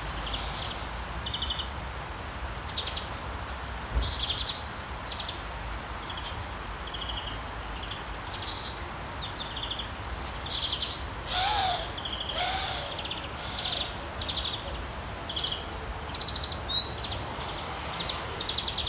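Birds chirping: many short, high calls scattered irregularly over a steady low background hum, with two short, lower sliding calls near the middle.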